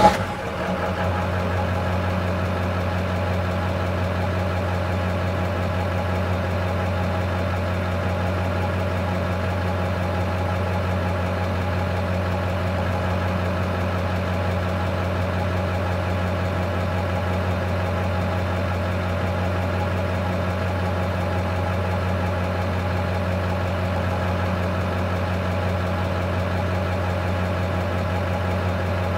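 Diesel engine of a Class A semi-truck tractor idling steadily. There is a brief surge right at the start, then an even, unchanging idle.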